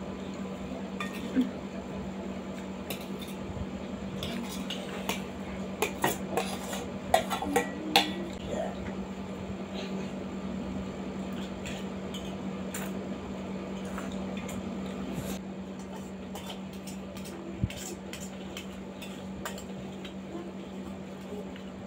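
Metal spoons and forks clinking and scraping against steel plates and bowls during eating, with a cluster of sharper clinks about six to eight seconds in.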